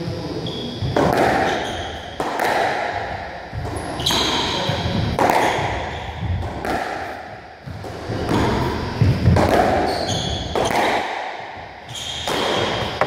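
Squash rally: the ball struck by rackets and hitting the court walls about every second, sharp cracks with a short ring after each, with shoe squeaks on the wooden floor between the shots.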